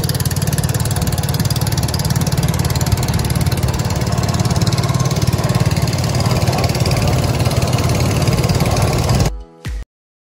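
Small river passenger boat's outboard motor running steadily under way, with water rushing past the hull. The sound cuts off abruptly near the end.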